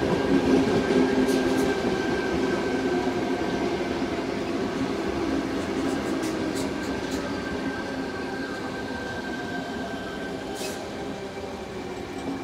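Tangara double-deck electric suburban train passing below and drawing away, a steady hum with running noise from the wheels on the rails that slowly fades. A few brief faint high clicks or squeals from the wheels come through as it goes.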